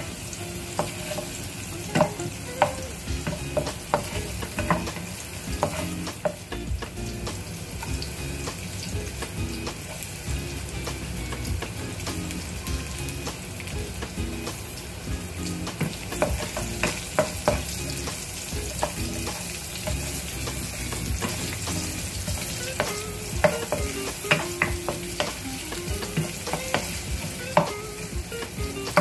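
Ginger, garlic and onion sizzling in hot oil in a wok, stirred with a wooden spatula. Sharp taps and scrapes of the spatula against the pan come in clusters in the first few seconds and again through the last half.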